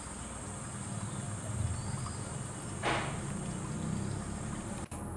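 Outdoor ambience: a steady low rumble under a continuous high-pitched drone, with one short, harsh rasping noise about three seconds in.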